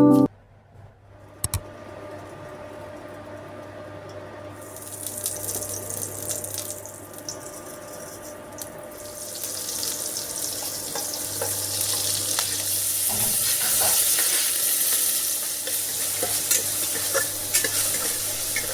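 Food frying in oil in a pan: a sizzle that starts a few seconds in and grows louder, with small clicks of stirring through it and a single sharp click near the start.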